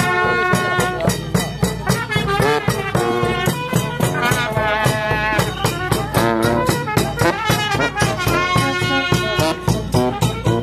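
Village brass band playing a tune: trumpets and a bass horn over a steady beat on a big bass drum.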